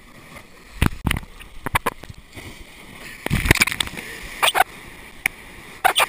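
Surf washing over a sandbag jetty: a wave breaks and whitewater rushes steadily from a couple of seconds in. Sharp splashes and thumps come close by, twice about a second in and several more times in the second half.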